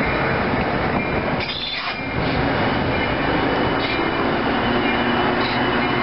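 Metra bilevel commuter coaches rolling past at close range: a steady, loud rumble of steel wheels on the rails, with a short dip in the noise about one and a half seconds in.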